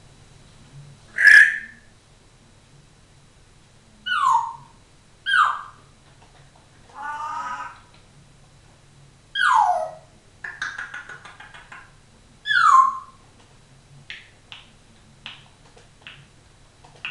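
African grey parrot vocalizing: five sharp whistles that glide downward, one warbling call in the middle, a buzzy rattling stretch, then a run of short clicks and chirps near the end.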